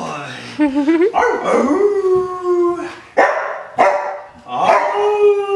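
Samoyed howling and "talking": a wavering call about half a second in, then a long held howl, two short sharp calls, and another held howl near the end.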